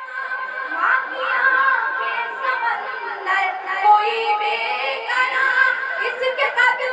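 A woman singing Urdu verse in the melodic tarannum style of mushaira recitation, with long held notes that bend and waver in pitch.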